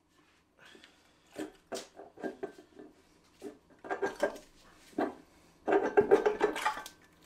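Scattered knocks, then a dense flurry of rattling knocks with a slight metallic ring about six seconds in. The aluminium cam cover of a Jaguar 4.2 XK engine is being tapped with a small rubber mallet and worked loose from the cylinder head.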